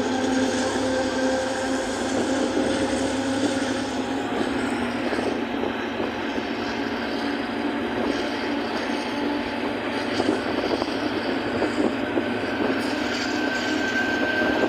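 Passenger train running steadily at speed, heard from inside a coach at the side window: continuous rumble and rush of the running train with a steady hum. A thin, steady whine joins in near the end.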